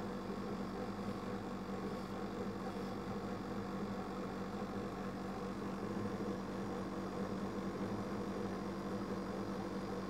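Dehumidifier's refrigeration compressor and fan running with a steady hum.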